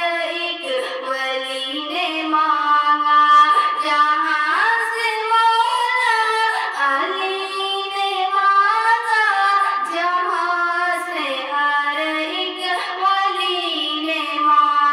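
A high-pitched solo voice singing an Urdu naat, a devotional song in praise of the Prophet, in long held notes with gliding ornaments.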